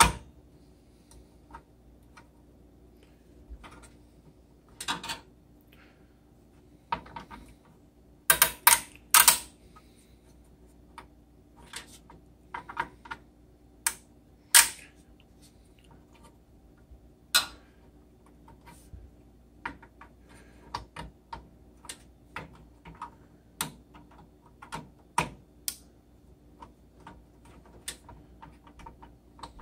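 Plastic push-pins of a CPU cooler being pressed and worked into the motherboard: scattered clicks, snaps and knocks, the loudest cluster about eight to nine seconds in. The pins are being reseated because one or more has not snapped all the way down.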